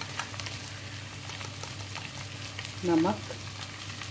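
Chopped okra with onions and green chillies frying in hot mustard oil over a high flame, sizzling and crackling steadily.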